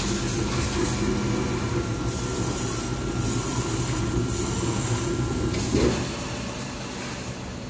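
Flatbed CNC knife cutting machine running, a steady mechanical hum as its gantry and tool head travel over the table. A high steady tone cuts off about five and a half seconds in, and after a brief louder swell just after that the hum is a little quieter.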